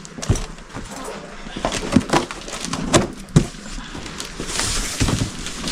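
Scissors working at the taped cardboard box of a new air compressor: scattered clicks and knocks, then a short scratchy scraping of the blades on tape and cardboard near the end.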